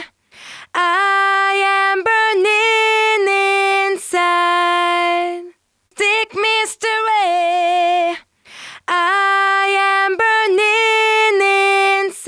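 Solo a cappella female voice singing a short phrase of held notes, heard twice in the same form with a breath before each, as a demo of a Urei 1176-style FET compressor plugin.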